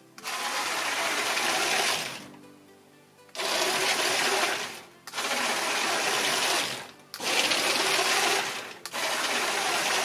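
Lesdiy BR 01.5 brick-built steam locomotive running at full speed on plastic track: its Power Functions motors and wheels make a steady whirring rattle. The sound comes in several stretches broken by short pauses.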